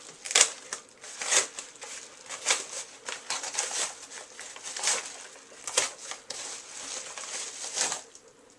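Product packaging crinkling and rustling in bursts as a small boxed item is handled and turned over.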